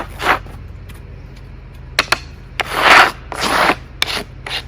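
Freshly milled walnut slab being handled: wood rubbing and scraping in several swells, loudest about three seconds in, with a few sharp knocks.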